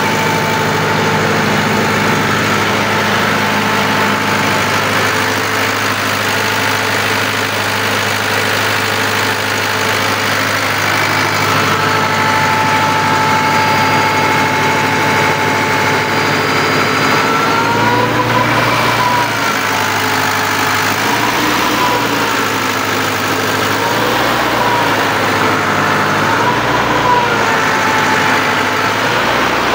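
Freshly overhauled tractor diesel engine running steadily under a load test. From just past halfway, its speed rises and falls in repeated swells every two to three seconds as the load changes.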